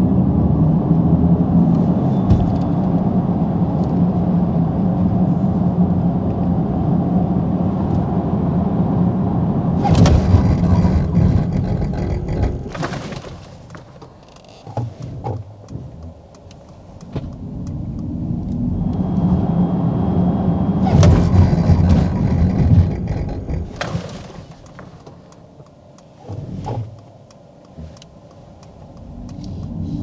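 Mercedes-AMG EQE 43 electric car under hard acceleration: a steady pitched electric drive hum over tyre and road noise, then it brakes hard to a stop and goes quiet. A second burst of drive hum builds and cuts off, and the hum is rising again at the very end. The hum is the car's synthetic drive sound, which sounds like a spaceship or a video game.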